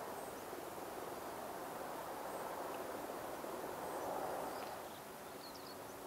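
Quiet waterside ambience: a soft, steady wash of distant background noise that swells about four seconds in and then eases off, with a few faint high chirps near the end.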